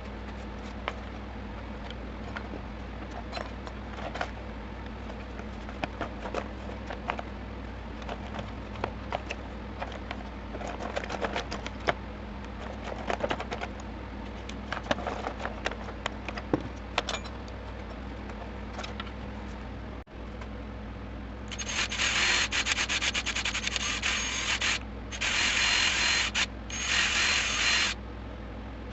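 Scattered clicks, taps and short rubbing sounds of hand work, then three loud bursts of harsh noise, the first about three seconds long and the next two shorter, over a steady low hum.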